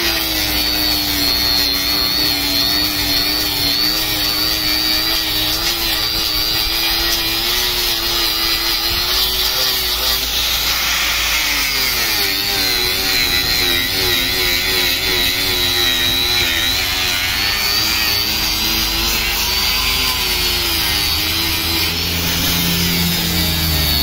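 Handheld angle grinder running continuously against a carved wooden sign, grinding down the wood in place of gouging with a chisel. Its whine wavers up and down in pitch as the disc is pressed into and moved across the wood.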